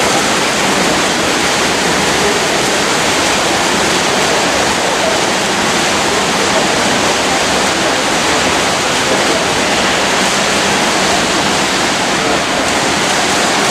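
Steady rushing splash of several swimmers racing front crawl in an indoor pool.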